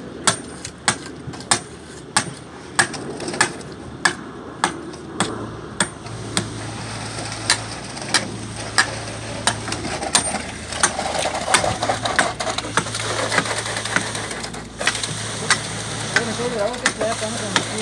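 Hammer striking steel rebar about twice a second, driving vertical bars into fresh concrete. About five seconds in, a steady engine hum joins, and the regular knocks carry on more lightly beside it.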